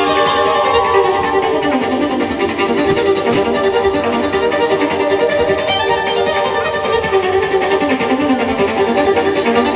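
Music led by violin, with held and gliding notes over a fuller accompaniment.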